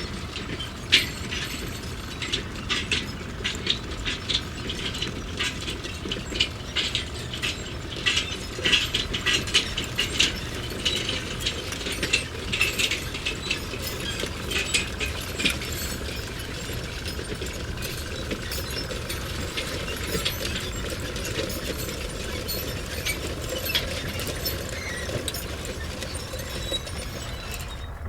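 Metal construction sounds: a dense run of metallic clicks, clinks and ratcheting over a steady mechanical rumble, the clicking thinning out a little past halfway.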